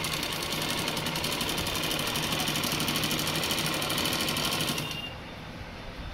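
Motor-driven Arihant tailoring sewing machine stitching cloth at speed with a rapid, even clatter. It stops about five seconds in.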